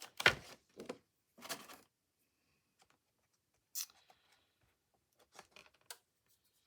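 Paper and craft supplies being handled: a few sharp rustles and clicks in the first second or so, the loudest right at the start, then scattered faint clicks.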